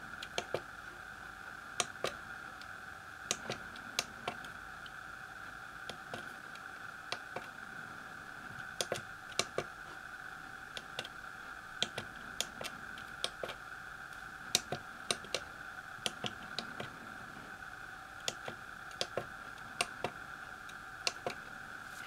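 Key presses on the keypad of an Elektronika MK-161 programmable calculator: irregular single clicks and quick pairs as a line of code is typed in, over a steady faint high hum.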